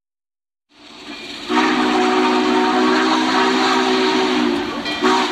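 Train whistle: a hiss starts under a second in, then about a second later a steady chord of several whistle notes sounds over the hiss. It is held for about three seconds, breaks briefly near the end, and sounds again.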